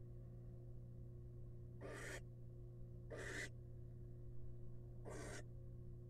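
Barn owl giving three short, harsh, rasping hiss-like calls, about a second and a half apart, over a steady low electrical hum.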